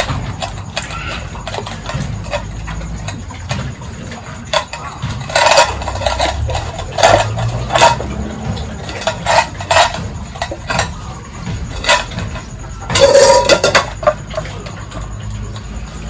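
Irregular metallic clanks and knocks from metal feeding containers being handled, about a dozen, loudest in a cluster near the end, over a low steady rumble.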